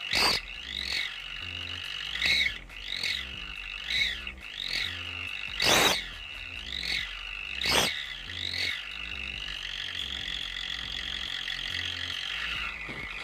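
Homemade whistle exhaust tip ('suos' turbo-jet whistle) on a Daihatsu Gran Max pickup, its side holes covered with aluminium foil so the gas leaves only through the centre hole. It whistles as the engine is blipped, the pitch rising and falling about once a second, then holds a steady whistle over the last few seconds. Three sharp knocks cut through, one right at the start and two in the middle.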